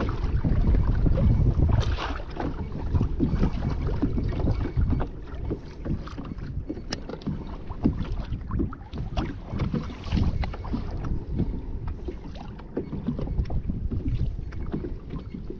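Wind buffeting the microphone in a low rumble, strongest in the first two seconds, with small waves slapping and splashing irregularly against a kayak hull on choppy sea.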